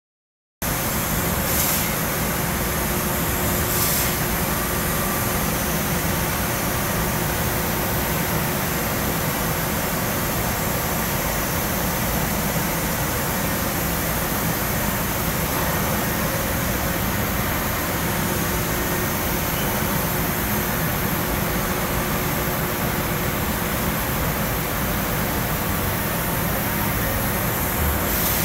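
Bystronic BySpeed Pro 3015 CNC laser cutter at work cutting sheet metal: a steady, even machine noise that starts abruptly about half a second in, with a few brief higher hisses.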